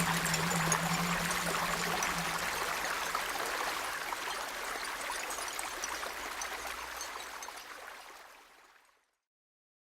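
A stream babbling over stones, a steady rush of water that fades out about seven seconds in and is gone a couple of seconds later.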